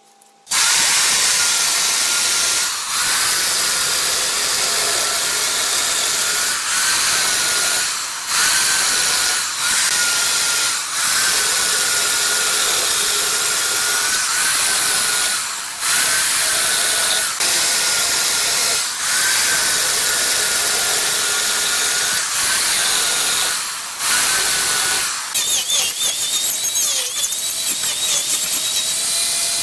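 Angle grinder cutting into the rim of a large turned hardwood piece. It starts suddenly about half a second in with a loud grinding whine that dips briefly about every second and a half. Near the end it turns choppier.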